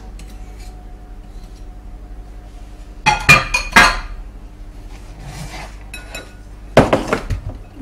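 Kitchen dishes and utensils clinking and knocking against bowls. A short run of sharp, ringing clinks comes about three seconds in, fainter clinks follow, and a loud clatter comes near the end.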